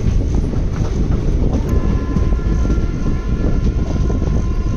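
Nandigram Express passenger train running with a steady rumble of wheels on track. A steady high whine joins about two seconds in.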